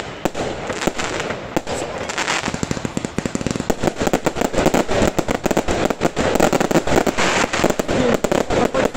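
Aerial fireworks bursting in a dense run of bangs and crackling. The bursts come thicker and faster from a little over a third of the way in.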